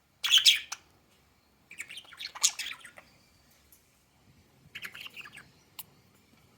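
Budgerigars chirping and chattering in three short, high, warbling bursts.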